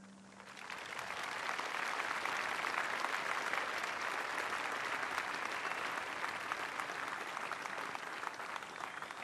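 A large crowd applauding, the clapping swelling over the first second and then holding steady.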